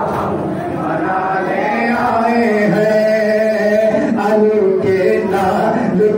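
A group of men chanting a nouha, a Shia lament, in unison, with a few sharp slaps of hands beating on chests (matam) marking the rhythm.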